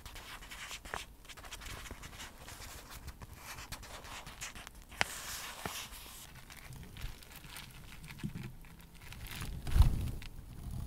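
Fingers tapping and crinkling a clear plastic packaging bag close to the microphone, a stream of small crackles and ticks. Near the end there is a louder, deeper rustle as the synthetic wig hair is handled close to the microphone.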